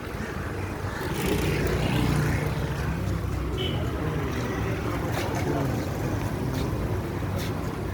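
A motor running steadily with a low hum, with a few faint clicks.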